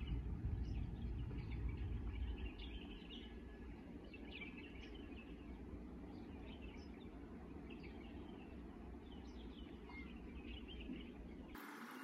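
Small birds chirping, many short calls repeating over a steady low rumble of background noise; the rumble is heavier in the first two seconds.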